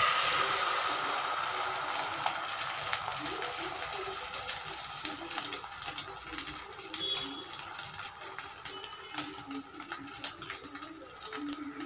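Beaten egg hitting hot oil in a nonstick kadai and frying: a loud sizzle that starts all at once, full of small pops, then slowly settles to a quieter, steady fry as the omelette sets.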